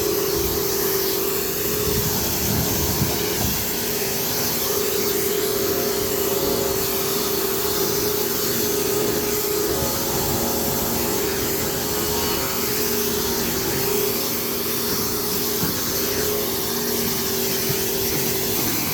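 Karcher K4 electric pressure washer running steadily, its pump motor humming under the hiss of the water jet as snow foam is rinsed off a car.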